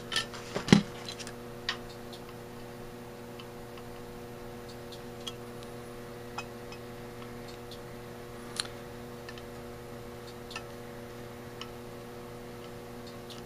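Light clicks and taps of metal as the Autolite 1100 carburetor top and its float are handled and turned over on a workbench: a cluster of clicks in the first second, then single clicks every second or two. A steady low hum runs underneath.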